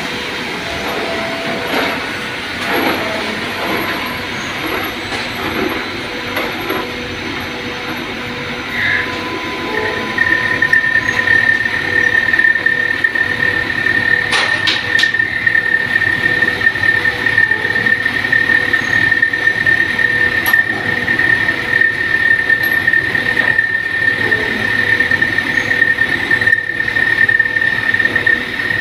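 CNC lathe boring its chuck jaws with a boring bar under coolant, the machine running with a steady hum. About a third of the way in, a loud, steady high-pitched squeal starts as the tool cuts and holds on.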